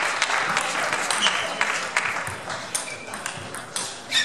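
Table tennis rally: the celluloid ball clicking sharply off the players' bats and the table in quick, irregular succession. Behind it is the steady hubbub of a large sports hall with other matches and voices.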